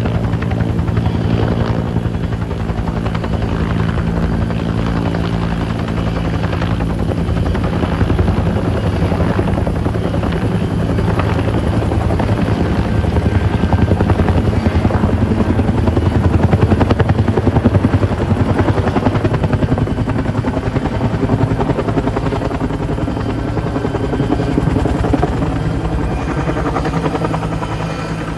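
Two-bladed helicopter with a water bucket slung on a longline flying low overhead: a steady, rapid rotor beat over the engine, loudest about halfway through and fading near the end as it moves away.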